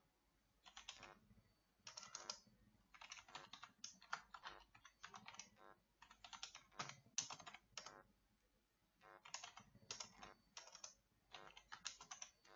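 Faint typing on a computer keyboard: quick irregular keystrokes in short runs, with a brief pause about eight seconds in.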